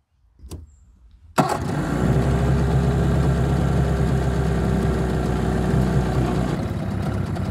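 A small boat's outboard motor catches suddenly about a second and a half in and settles into a steady idle; the motor had been hard to start.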